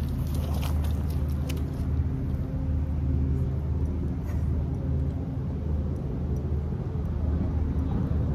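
A steady, low engine rumble with a constant hum, with a few light clicks in the first second and a half.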